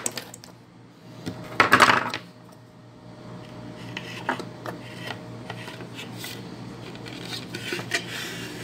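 Handling sounds of a hollow plastic container and a rubber-sheathed electrical cable knocking and rubbing as the cable is fed through a hole in the container, with a louder scraping clatter about two seconds in.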